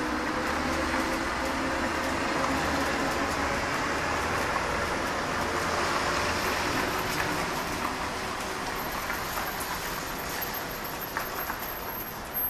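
Steady, broad roar of a jet airliner passing at cruise altitude, a Boeing 777-200LR with GE90 engines, heard from the ground; it eases off a little over the last few seconds.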